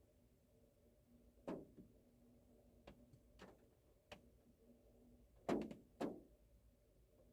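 Raindrops tapping irregularly on the car, heard from inside the car: about six separate taps, the loudest two close together a little after the middle, over a faint steady hum.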